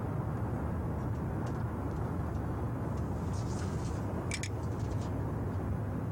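Steady wind rumble on the microphone high up on a building face, with a few short high clicks from the window-washing work about three and a half and four and a half seconds in.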